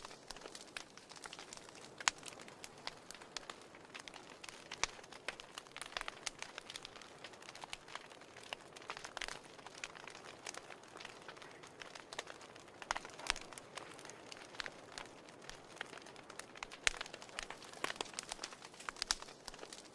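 Wood fire burning in a fireplace: irregular crackles and sharp pops over a soft steady hiss of flame.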